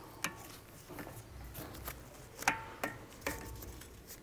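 Pliers clicking on the steel nut of an axle puller tool as it is turned on the puller's threaded rod: scattered light metallic clicks, a few with a short ring, the sharpest three in the second half.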